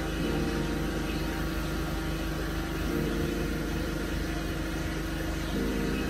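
Steady low background drone, engine-like, whose tones shift slightly every few seconds.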